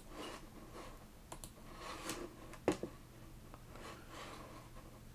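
A few faint, scattered clicks of a computer mouse, the sharpest about two and a half seconds in, over a steady low hum.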